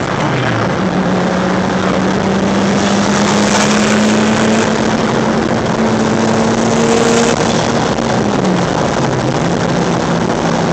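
Nissan Maxima V6 engine pulling hard, its pitch climbing steadily through a long gear, then dropping sharply near the end and climbing again, over heavy wind and road rush.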